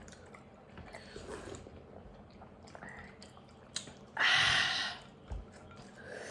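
Quiet chewing and mouth noises, then a loud slurp lasting under a second about four seconds in, as iced milk is sipped.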